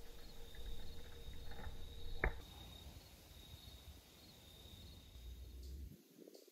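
Crickets trilling steadily in the dark, with one sharp pop from the burning campfire wood about two seconds in. The cricket sound cuts off near the end.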